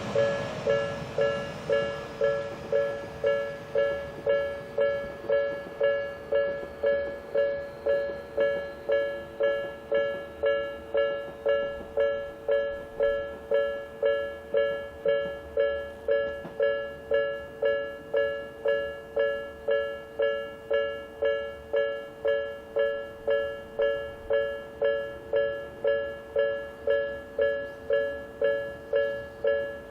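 Japanese railway level-crossing electronic warning bell, ringing a steady two-tone ding about one and a half times a second. In the first few seconds the noise of a train that has just passed fades away beneath it.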